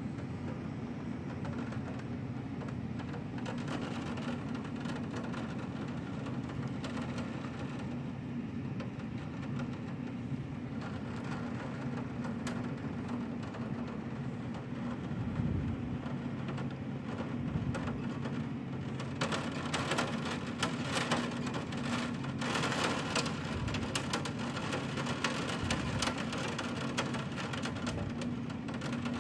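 Wind-driven rain pattering against window glass over a steady low rush of storm noise, the rain growing heavier and more crackling about two-thirds of the way in.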